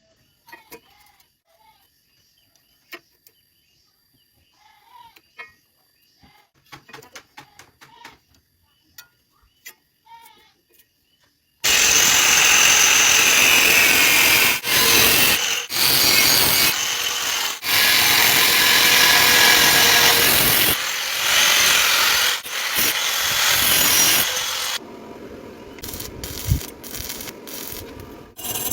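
Stick-welding arc crackling loudly for about thirteen seconds, starting about twelve seconds in, with a few brief breaks, then stopping. Faint clicks come before it, and sharper clicks and taps follow near the end.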